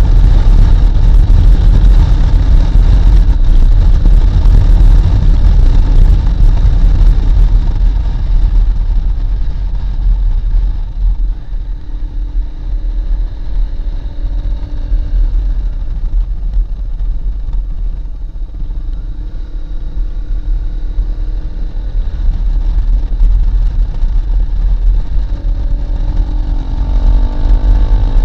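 Riding noise from a Honda CRF250L motorcycle: heavy wind rumble on the microphone, with the single-cylinder engine running underneath. The wind eases for a stretch in the middle, and near the end the engine note rises in pitch as the bike speeds up.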